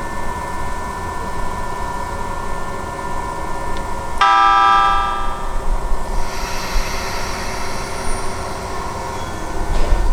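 Keisei electric train running with a steady whine, sounding its horn in one blast of about a second about four seconds in; afterwards higher-pitched tones rise over the train's running noise.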